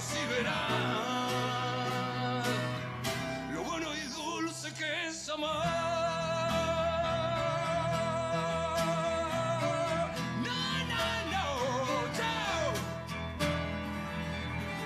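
Acoustic guitar strummed under male singing, live. In the middle the singer holds one long note with a slight waver.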